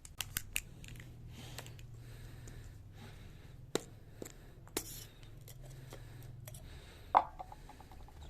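Scattered sharp clicks and knocks of small parts and tools being handled: three quick clicks at the start, two single knocks midway, and a louder clink near the end followed by a short rattle, over a steady low hum.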